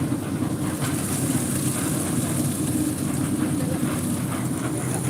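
Heavy machinery engine running steadily on a concrete pour, a constant low drone with a steady high hiss over it.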